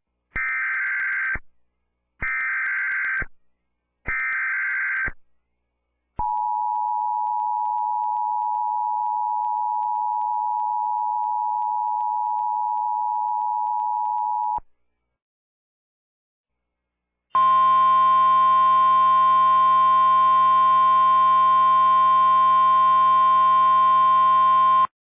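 Three short screeching Emergency Alert System data bursts, about a second each. Then the steady two-tone EAS attention signal holds for about eight seconds. After a short gap comes a louder steady alarm tone made of many stacked pitches, lasting about seven seconds.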